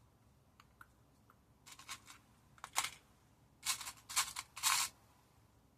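A few faint clicks, then several short rattling bursts of small gems and embellishments being rummaged through by hand, the last few coming close together.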